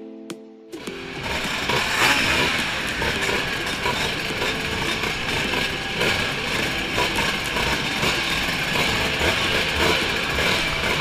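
Brief music that cuts off under a second in, then many classic Vespa scooters' two-stroke engines running together in a tightly packed group.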